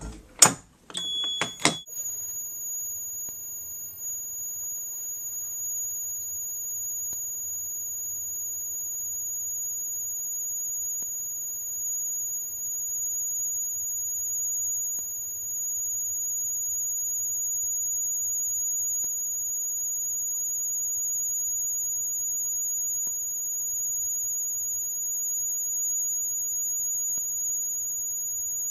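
A few clicks, then an electronic fire alarm device sounds a continuous, unbroken high-pitched tone. A brief lower tone comes just before it settles.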